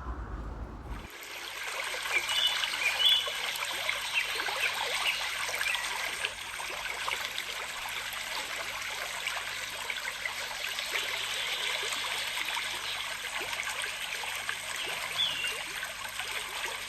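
Water trickling and splashing steadily, as of a small stream or water feature, starting about a second in.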